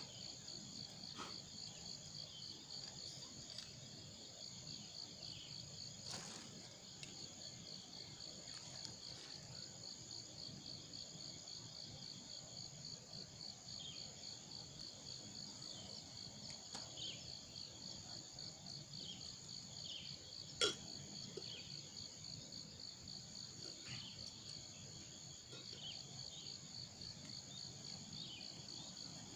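Insects trilling in a steady chorus, a rapid pulsing high buzz. A single sharp click comes about 21 seconds in.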